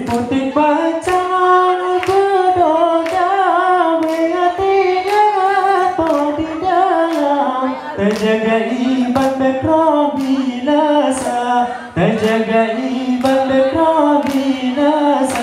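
Unaccompanied sung melody of a Rapa'i Geleng song, one line winding up and down, over steady hand clapping about twice a second from the seated dancers, who hold their rapa'i frame drums unstruck.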